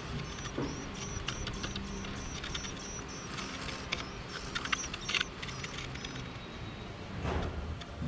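Indian white-eyes at the nest chirping: a fast series of thin, high chirps, about three a second, that stops about five and a half seconds in. Soft clicks and rustles come from the nest and leaves, and a brief whoosh swells near the end over a low background hum.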